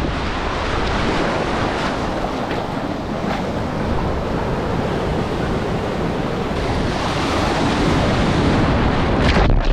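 Ocean surf washing up and breaking on a sandy beach shore, a continuous rushing wash, a little louder near the end as a wave breaks close in front of the microphone.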